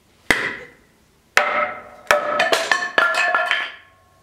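A large forged Kopis knife blade chopping into a wooden board on the anvil: about ten sharp strikes, three spaced out and then a quick flurry, each leaving the steel ringing.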